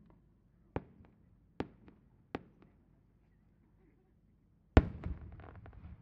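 Aerial firework shells bursting. Four sharp cracks come about a second apart, then a much louder boom near the end, followed by trailing crackle and rumble.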